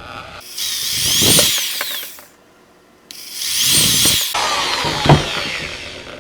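Power drill run in two bursts of about two and three seconds, its motor whine climbing in pitch and falling away in each, with a sharp knock near the end of the second burst.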